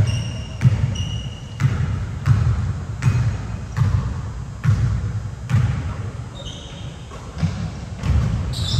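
A basketball being dribbled on a gym court, a bounce about every three-quarters of a second, each one echoing in the hall. A few short high sneaker squeaks come in between.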